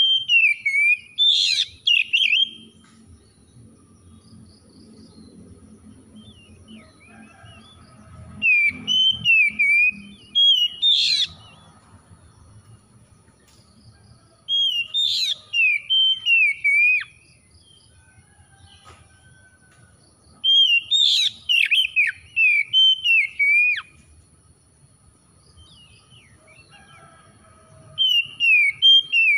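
Oriental magpie-robin singing: five bouts of quick, varied whistled phrases, each a few seconds long, with short pauses between.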